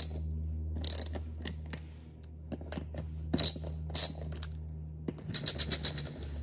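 Hand ratchet wrench clicking as the hub bolts of a tundra wheel are tightened: scattered clicks, then a fast run of clicks near the end. A steady low hum runs underneath.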